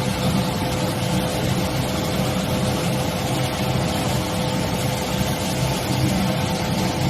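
Induction heat treatment line for steel drill pipe running steadily: constant machinery noise with a low rumble and a steady, even whine.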